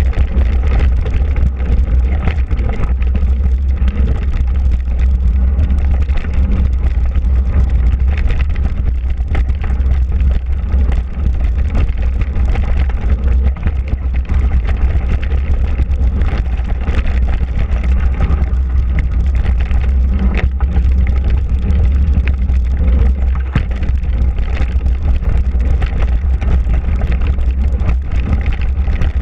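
Mountain bike rolling fast down a dirt singletrack: a steady low rumble of wind on the microphone and tyre noise on the trail, with occasional short rattles and knocks as the bike goes over bumps.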